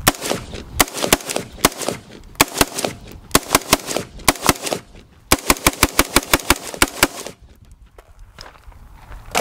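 Bushmaster MOE AR-15 in 5.56 firing rapid semi-automatic shots of cheap steel-cased 55-grain full metal jacket ammunition. The shots come in several quick strings, about four to six a second, with brief pauses between strings, and stop about seven seconds in.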